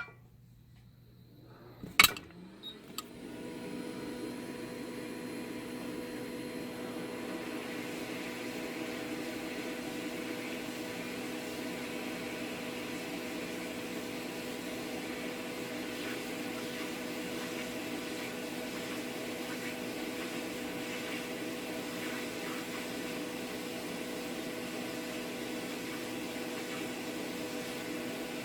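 A click, then a small electric motor or fan starts, spins up over about a second and a half, and runs on with a steady hum.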